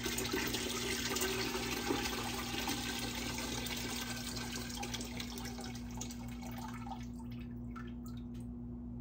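Apple-soaking water poured from a three-liter glass jar into a stock pot: a steady splashing stream that thins to trickles and drips about six seconds in, with a few light clicks near the end.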